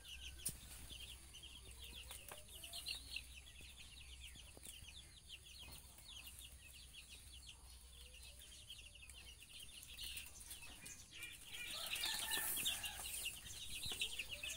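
Baby chicks peeping in a rapid, continuous stream of short high chirps, with a few low gliding clucks from a hen. The peeping grows louder about twelve seconds in.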